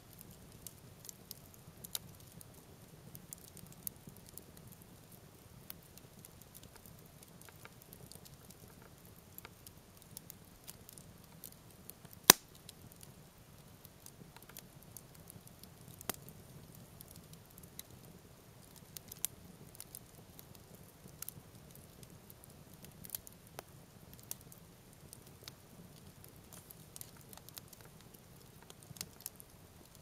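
Wood campfire crackling, with frequent small irregular pops and one sharp, much louder pop about twelve seconds in.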